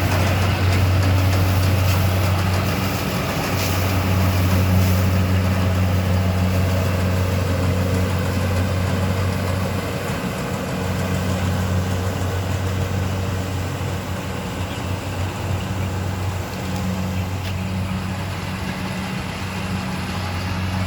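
Rice combine harvester running steadily: a low, even engine drone with machinery noise over it.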